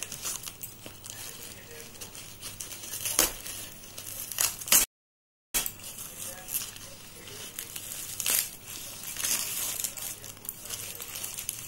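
Scissors snipping and crunching through packing tape and a cardboard box, with crinkling of tape and plastic wrap, in irregular cuts and sharp snaps. The sound cuts out completely for about half a second near the middle.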